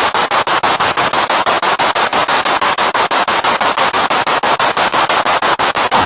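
Spirit box radio sweeping rapidly through stations: loud static and snatches of radio noise, chopped into short even pulses about eight times a second.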